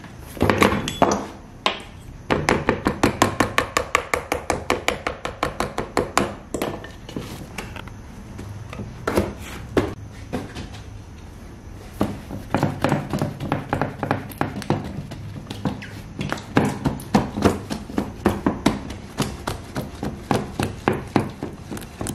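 Rapid tapping of a chekich bread stamp pricking the centre of raw patir dough on a board, about five taps a second in long runs, after a few heavier thumps near the start.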